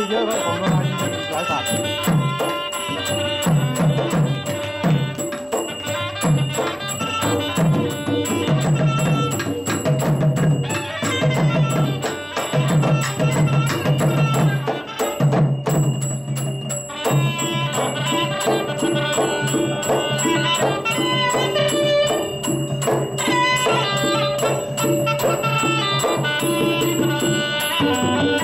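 Live southern Thai Nora dance-drama ensemble music: hand drums keep a quick, driving beat under a held melodic line.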